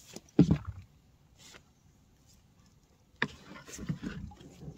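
Hand-picking Peru loofahs among the vines: a thump about half a second in, then quiet, then a run of rustles and crackles from leaves and stems being handled near the end.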